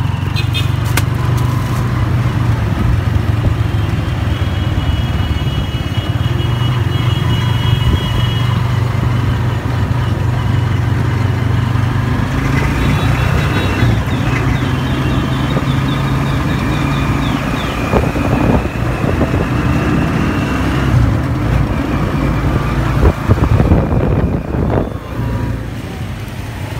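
Motor vehicle engine running with a steady hum amid city street traffic, with higher tones coming and going; the hum drops away near the end.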